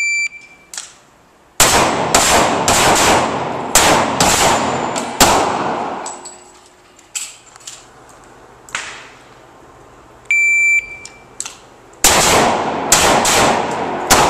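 A shot timer's start beep, then a rapid string of about ten handgun shots over roughly four seconds. Around ten seconds in a second timer beep sounds, followed by another fast string of handgun shots.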